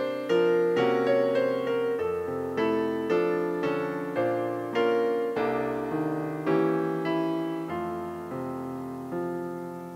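Solo piano playing slow chords, each one struck and left to ring and fade; near the end a last chord is held and dies away.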